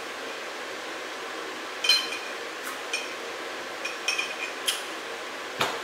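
A utensil clicking and tapping against a dish: a scatter of light clinks, some with a short ring, the loudest about two seconds in and a quick run of them around four seconds, over a steady hiss.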